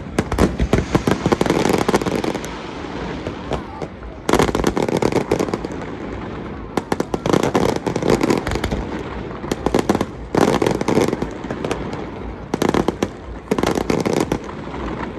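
Fireworks display: repeated volleys of dense bangs and crackling, each lasting a second or two, coming about six times with short lulls between them.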